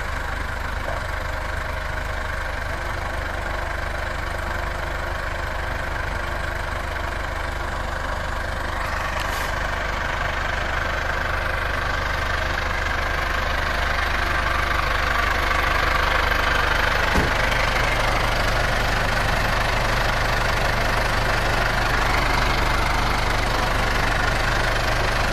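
International 885 XL farm tractor's diesel engine running as the tractor pulls up a muddy track toward and past the listener. It grows steadily louder from about nine seconds in and is loudest near the end, when the tractor is alongside.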